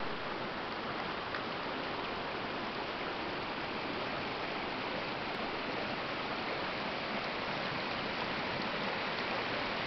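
Mountain stream running over rocks: a steady, even rushing of water.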